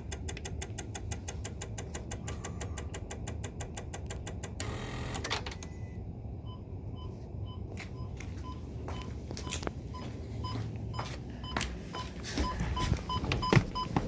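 Rapid, steady clicking from a Ford Fusion Hybrid that will not start or power up. About four and a half seconds in the clicking stops, and a steady string of electronic beeps follows, with a few knocks and clicks over it.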